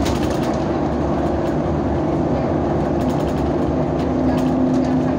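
Engine and road noise of a moving bus, heard from inside: a steady low drone with a constant hum.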